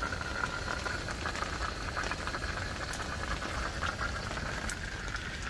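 Single-burner propane camp stove running with a steady hiss while it heats a pot of water for coffee, with rain pattering lightly in the background.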